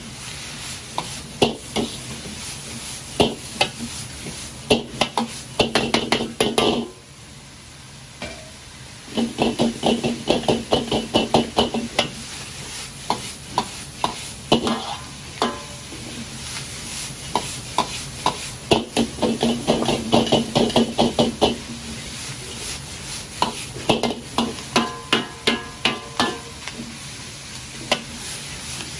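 A Chinese ladle scraping and clanking against a wok as a big batch of pork and vegetables is stir-fried and tossed, over a steady sizzle. The clanks come in quick runs, with a quieter pause about seven seconds in.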